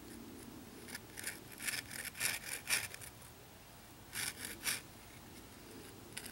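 A blade sawing back and forth into a wooden bow-drill fireboard to start a cut. The short rasping strokes come in a quick run of about eight, then after a pause three more.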